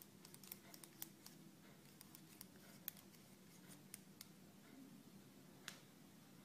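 Near silence: a faint steady low hum with scattered soft clicks at irregular intervals, the clearest one near the end.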